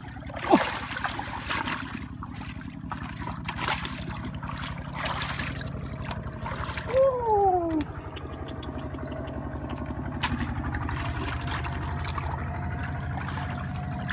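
Hands sloshing and splashing in shallow muddy water while groping in the mud for fish, with a few sharper splashes in the first half. A steady low hum runs underneath, and a brief falling tone sounds about seven seconds in.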